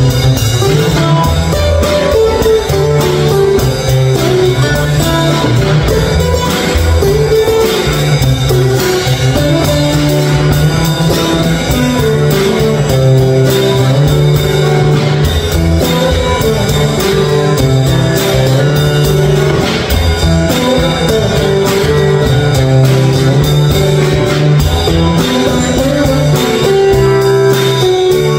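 Live instrumental jam of two acoustic guitars and a drum kit, the guitars picked and strummed over a steady beat.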